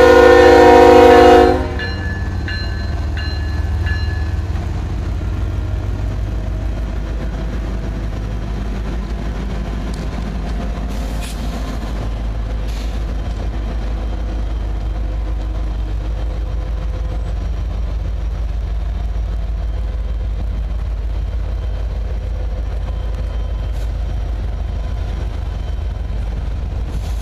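Norfolk Southern 8100's air horn sounding loudly at the grade crossing and cutting off about a second and a half in, then the steady low rumble of the freight train passing close by: the GE ES44AC and a second diesel locomotive, then loaded coal hoppers.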